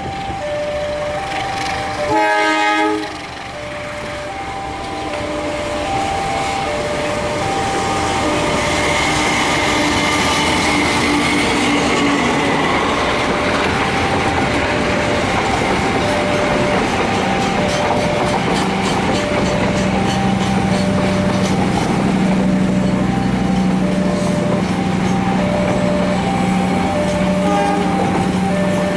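Level-crossing warning alarm sounding two alternating tones over and over while a diesel-hauled passenger train passes. The locomotive gives one horn blast of about a second, about two seconds in. The train's running noise then builds as the coaches roll by, their wheels clicking rapidly over the rail joints.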